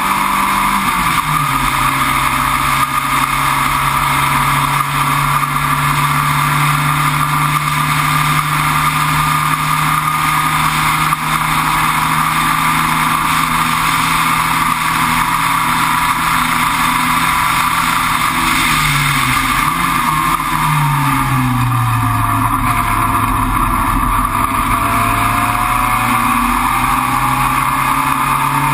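Sports racer's engine heard from onboard at speed, over constant wind and road noise. The engine note drops about a second in and holds steady for a long stretch, falls further about two-thirds of the way through as the car slows, then climbs again near the end.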